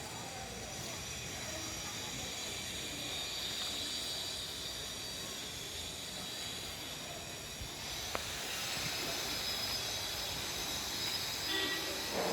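Steady hissing background noise, with a single sharp tick about eight seconds in.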